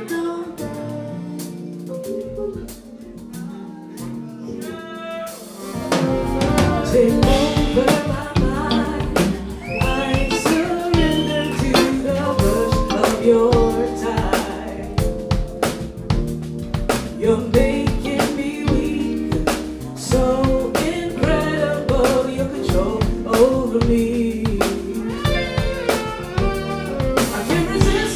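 Live jazz-funk band with a female lead vocalist singing. It opens sparse and quieter, and about six seconds in the drum kit and bass come in and the full band plays on under the singing.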